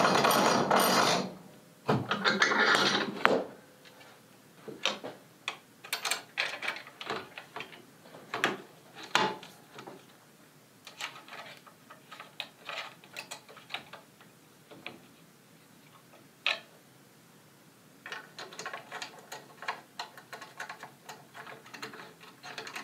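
Action screws being turned with an Allen key through an MDT hybrid chassis stock into a rifle action: scattered small metallic clicks and ticks, thickening into a quick run of rattling clicks near the end. Two loud bursts of handling noise in the first few seconds.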